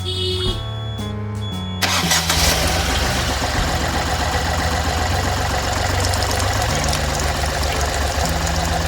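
Ashok Leyland Dost's 1.5-litre three-cylinder diesel engine starting up about two seconds in, after a short stretch of background music, then idling steadily with a fast even diesel pulse. Background music continues faintly underneath.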